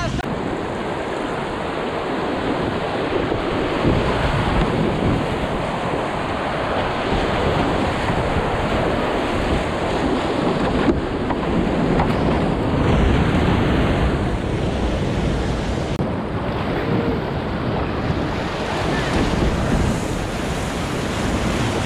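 Whitewater rapids rushing around a kayak running a rocky creek: a loud, steady roar of churning water, with low rumble from wind and spray on the microphone.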